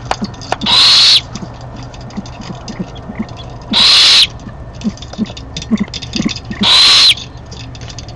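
Owl giving a loud, rasping, hiss-like call three times, each about half a second long and about three seconds apart, with faint clicks and ticks in between.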